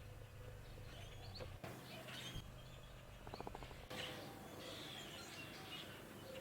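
Small birds chirping faintly in a tree, scattered short calls, with a brief fast rattle of clicks a little after three seconds in.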